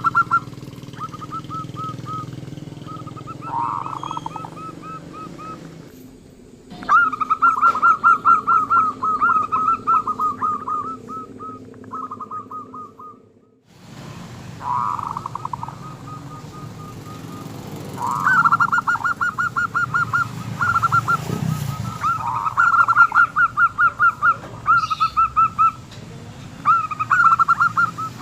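Zebra dove (perkutut) cooing: repeated phrases of quick, evenly pulsed notes with short pauses between them. Everything briefly drops away about halfway through, and a low hum runs underneath.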